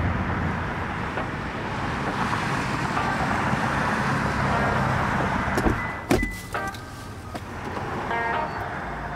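Steady road and tyre noise of a car driving at speed. About six seconds in it gives way to a few sharp knocks and a quieter stretch.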